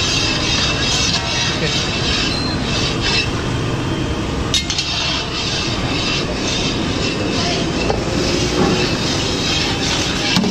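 Sugar syrup boiling hard in a large iron wok, a steady bubbling rush, with a few faint clinks of a metal ladle stirring it.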